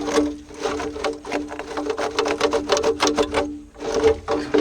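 Starter cranking the John Deere 350 bulldozer's diesel engine: a steady whine with rapid, even clicking as the engine turns over and draws air, a sign it is not seized. The sound dips briefly about three-quarters of the way through.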